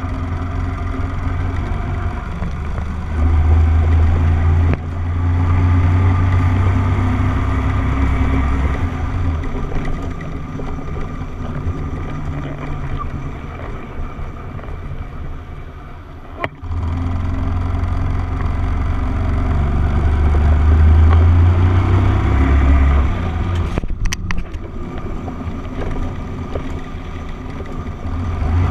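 Small motorcycle engine running on the move, heard from the bike itself. It swells as the bike accelerates, a few seconds in and again about two-thirds through, and sags in between, with short breaks in the sound about five and sixteen seconds in. A few sharp clicks come near the end.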